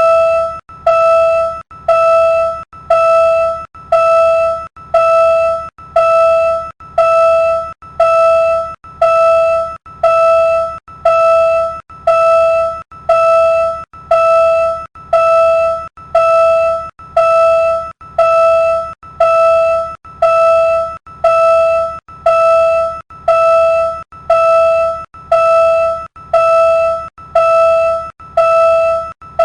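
Railroad level-crossing warning bell ringing steadily, one ding about every second, each fading before the next.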